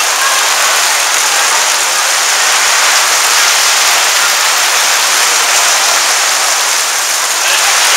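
Heavy rain pouring on a pop-up gazebo canopy overhead during a thunderstorm: a loud, dense, steady hiss.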